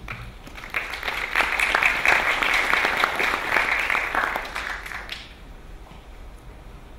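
Audience applauding after a speech: dense clapping that swells about a second in and dies away after about five seconds.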